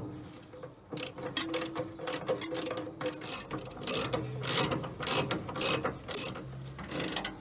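Ratchet spanner clicking in quick repeated strokes, about two a second, as the 11 mm bolts holding the radiator are undone.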